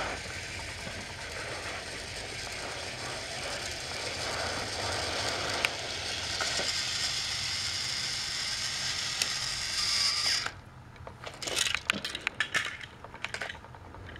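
Battery-powered Trackmaster toy train engines (Thomas and Percy) running along plastic track: a steady geared-motor whirr with a gear rattle and a high whine that grows stronger shortly before it cuts off suddenly about ten seconds in. Scattered light clicks and rattles follow.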